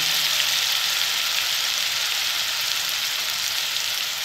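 Chopped red onion frying in hot oil with a red chilli and garlic paste in a kadai: a steady sizzle.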